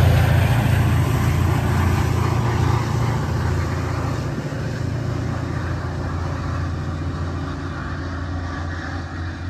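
MBTA commuter rail diesel locomotive, an EMD F40PH, running under power with a deep, steady engine drone and rail rumble that fade gradually as the train pulls away.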